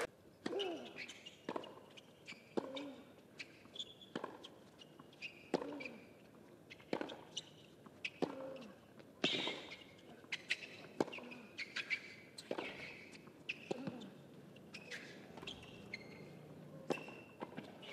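Tennis ball struck back and forth in a long rally on a hard court, a sharp racquet hit about every second and a half, some shots with a short grunt from the player, and brief shoe squeaks between hits.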